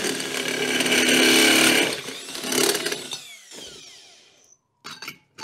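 Cordless drill driving a step drill bit through the bottom of a thick stainless steel bowl, the metal ringing loudly as the bit cuts. After a second short burst the drill spins down with a falling pitch about three seconds in, and a few light clicks follow near the end.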